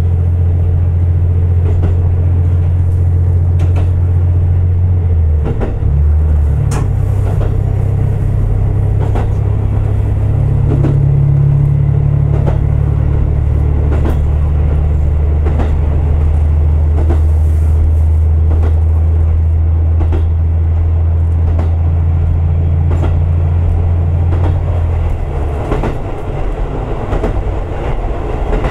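Diesel railcar under way: a steady low engine drone, its note changing about five seconds in, with wheels clicking over rail joints. Near the end the engine drone drops away while the wheel clicks carry on.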